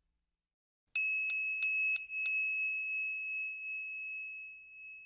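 Bell sound effect: five quick rings about a third of a second apart, starting about a second in, then one high tone ringing on and slowly fading.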